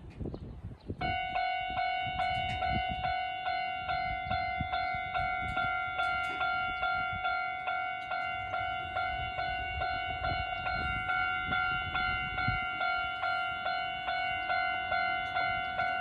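Japanese railway level-crossing alarm starting up about a second in and ringing a repeated electronic bell-like tone, a little over two strokes a second. It is back on its normal old-style sound after a fault had left it on a single tone.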